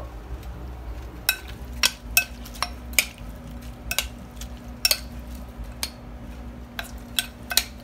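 A metal spoon clinking against a white ceramic bowl as a dressed salad is tossed and mixed: about a dozen irregular, sharp clinks, each with a brief ring.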